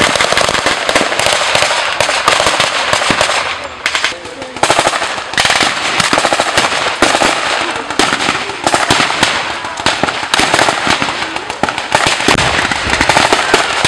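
Near-continuous blank gunfire in a mock battle: rapid machine-gun bursts mixed with single shots, with a short lull about four seconds in.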